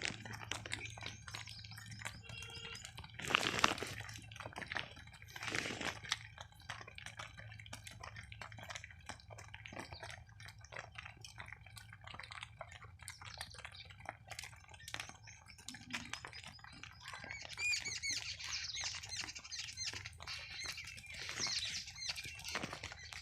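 A cow chewing and crunching fodder, with a run of irregular crackling clicks. Small birds chirp for several seconds in the last third.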